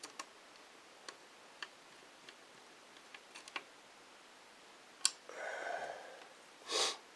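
Small screwdriver turning a screw into a laptop motherboard: light, irregular ticking clicks. About five seconds in comes a sharp click and a short rustle, and near the end a brief, louder knock of the parts being handled.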